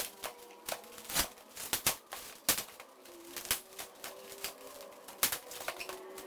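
Scissors snipping and cutting along the seam of a styrofoam box, with hands handling the foam: a run of irregular sharp clicks and snips.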